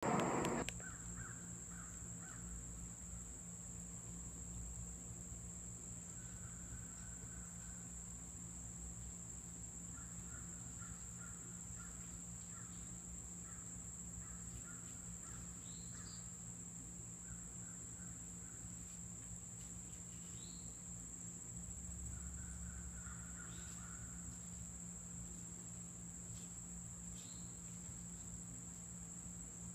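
Faint outdoor ambience: a steady high-pitched insect drone and a low steady hum, with distant birds calling in short runs and a few brief rising chirps. A short bump right at the start is the loudest moment.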